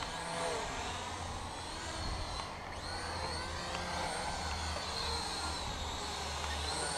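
Syma X8W quadcopter's motors and propellers whining, the pitch gliding up and down as it spins and manoeuvres in high-rate mode.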